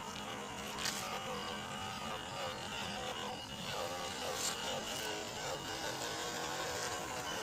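Small electric motor and gearbox of an MN86KS 1/12-scale RC crawler whining as it drives over mud and stones, the pitch wavering with the throttle. A few sharp clicks, about a second and four and a half seconds in.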